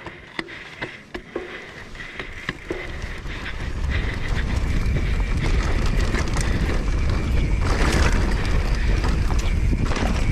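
Mountain bike rolling downhill over a rough grass trail: clicks and knocks from the bike and tyres over bumps, then from about four seconds in a loud, steady rush of wind on the microphone as the bike picks up speed.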